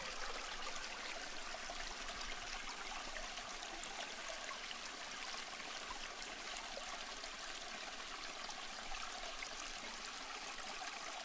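Running water from a stream, a steady flowing babble with many small splashes and trickles.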